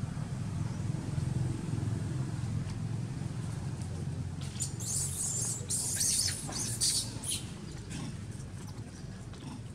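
Baby macaque squealing in a rapid run of short, high-pitched squeaks about halfway through as its mother pulls it by the leg, over a steady low rumble.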